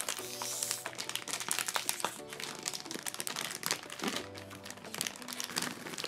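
Plastic snack bag crinkling and crackling as it is handled and torn open, over background music with sustained notes.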